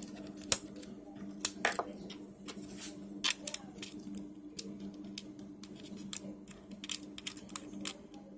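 Small irregular clicks and taps of fingers and fingernails pressing a tiny push-on antenna connector onto a laptop's mini PCIe Wi-Fi card, the connector not yet seated. A low steady hum runs underneath.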